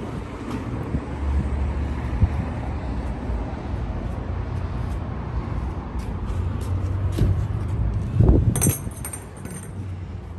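Wind buffeting a phone's microphone with a low rumble while walking, then about eight seconds in a loud clunk and a few sharp clicks as an aluminium-framed glass entrance door is pulled open and its latch and handle rattle.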